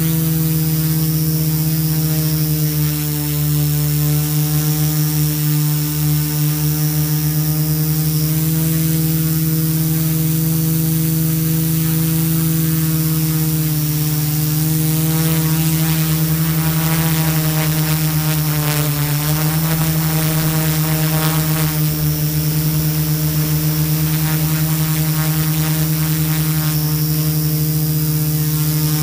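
Multirotor's brushless motors and propellers humming steadily in flight, close to the microphone. The pitch sags slightly a couple of times midway and recovers as the throttle shifts.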